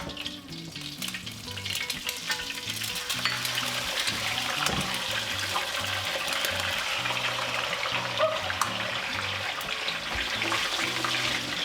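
Eggs sizzling as they fry in very hot cooking oil in a pan, a steady hiss that builds up over the first two seconds. Background music plays underneath.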